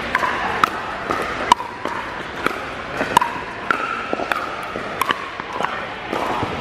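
Pickleball paddles striking the hollow plastic ball in a fast doubles exchange, with other courts' hits mixed in. There are sharp, irregular pops about every half second, some with a short ringing tone, echoing in a large indoor hall.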